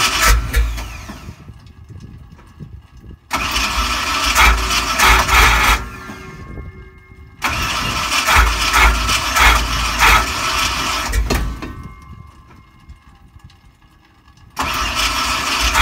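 Big-block V8 of a Ford F-100 pickup on a cold start in 17-degree weather, tried over and over: four loud bursts of starting, each cutting in suddenly and dying away after a few seconds without settling into an idle.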